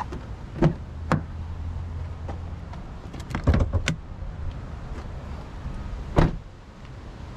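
Pickup truck's front door being opened and shut by hand: a couple of latch clicks at the start, a cluster of knocks and clicks with the door open a few seconds in, then the door closing with a solid thump about six seconds in, the loudest sound, over a low steady hum.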